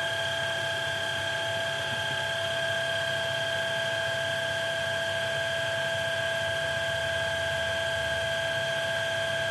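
VacLife VL732 cordless stick vacuum's brushless motor running steadily on medium power with a steady high whine, drawing air through its motorized brushroll cleaner head during an airflow test.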